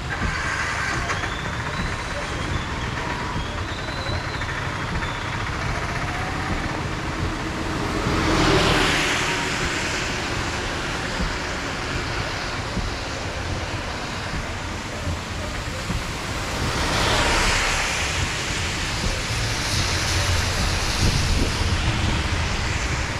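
Steady rain with vehicles passing on a wet road. Tyres hiss on the water, swelling twice: once about a third of the way in and again about three-quarters through.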